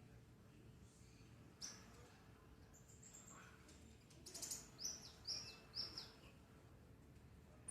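Konin songbird chirping: a single faint chirp about a second and a half in, a short high note near three seconds, then a run of four quick, high, falling chirps between four and six seconds in.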